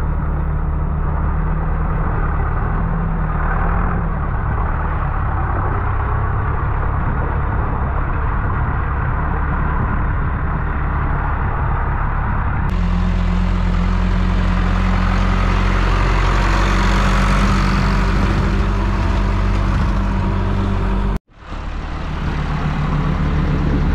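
Farm tractor engine running steadily as the tractor drives through shallow seawater. About halfway through it becomes abruptly louder and fuller, with a hiss of splashing water, and near the end the sound drops out for a moment before the engine comes back.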